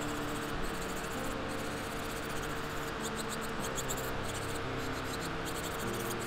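Electric nail drill running, its bit grinding gel polish off a fingernail: a steady whine under rapid fine scratching. Soft background music plays underneath.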